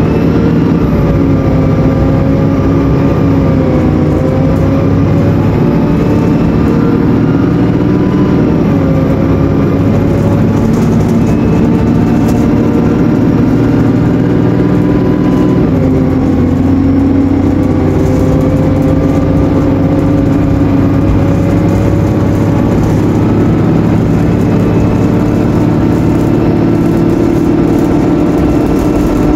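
Rear-mounted diesel engine of an ADL/TransBus Enviro 300 single-deck bus at full throttle on kickdown, heard loud inside the rear of the saloon. The engine note climbs, drops sharply about halfway through as the automatic gearbox shifts up, then climbs steadily again.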